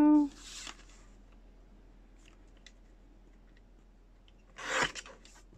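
Paper handled on a cutting mat with a few faint ticks, then about four and a half seconds in a single quick stroke of a sliding paper trimmer's blade cutting through envelope paper.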